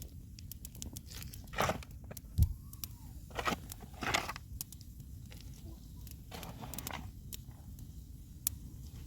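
Scattered crunching and rustling handling noises with a dull thump about two and a half seconds in, over a steady low rumble.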